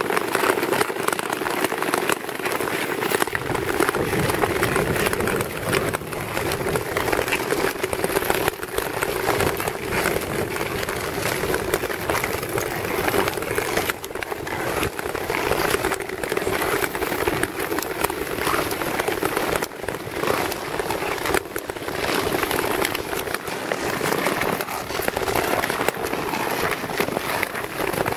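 Nordic tour skates scraping and gliding over clear lake ice, a continuous rushing hiss with a steady hum underneath.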